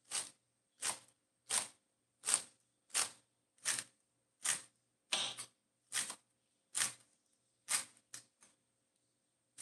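Kitchen knife chopping spring onion on a wooden cutting board: about a dozen even chops at roughly one and a half per second, the last couple lighter, stopping about a second before the end.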